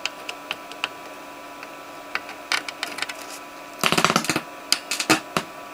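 Salvaged TDA7265 stereo amplifier board's speaker output with a steady hum and scattered clicks and pops as input wires are connected, then a dense burst of crackling about four seconds in. The noise is the sign of a poor, unfiltered input signal that still needs components to clean it up.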